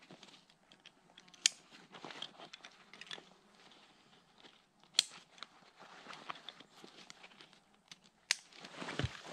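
Plastic buckles on a coated-nylon backpack clicking shut, three sharp clicks a few seconds apart, with rustling and scraping of nylon straps and fabric being handled between them. The rustling grows heavier near the end.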